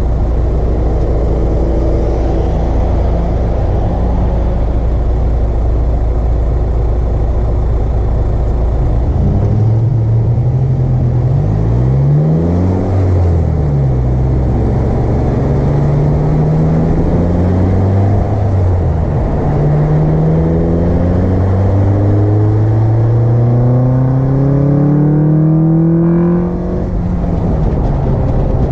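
Car engine breathing through an aftermarket Acuity cold air intake. It runs steadily at first, then from about a third of the way in it accelerates, its pitch climbing and dropping back at a few gear changes, with one long pull near the end.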